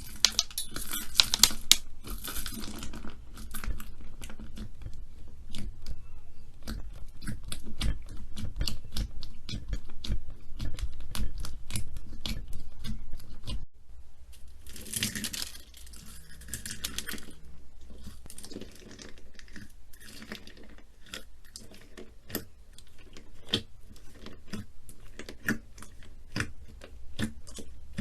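Slime being squeezed and pressed by hand, with dense crackling and popping. Just before halfway it cuts abruptly to quieter, sparser pops and squelches.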